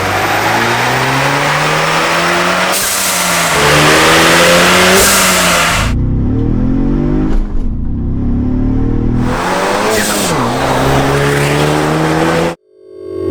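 Ford Bronco Badlands with an XForce Varex valved catback exhaust, engine accelerating, its exhaust note repeatedly rising in pitch and dropping back. The sound cuts off abruptly near the end.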